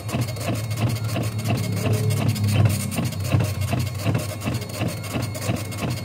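Dot-matrix bank passbook printer printing: a fast, even, rasping chatter of print-head strikes over a steady low hum.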